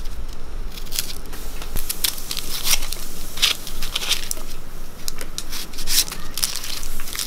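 Dry papery skins of red onions crackling and tearing as they are peeled and trimmed with a knife, in an irregular run of crisp clicks.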